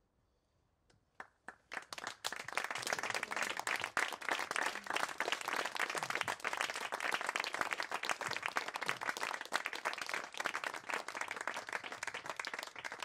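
Small audience applauding: a few scattered claps about a second in swell into steady clapping, which thins out near the end.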